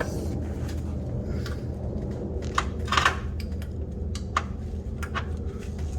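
A few sharp metallic clinks of hand tools on the engine as a water pump bolt is worked loose, over a steady low hum.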